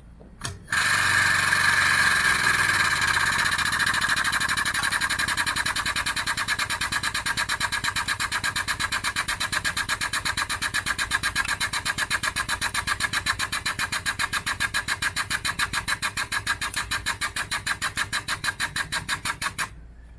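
Air-powered machinery running with a fast, even pulsing that slows gradually, starting just under a second in and cutting off suddenly shortly before the end.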